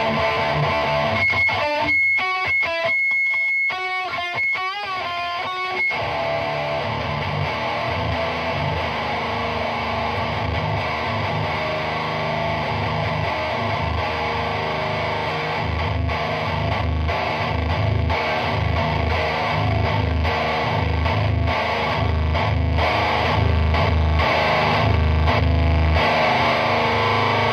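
Electric guitar through a chainsaw-tone distortion pedal and a high-gain amp, played heavily distorted in D standard tuning. A couple of seconds in there is a short stretch of sustained ringing notes, then thick low riffing with rhythmic chugs.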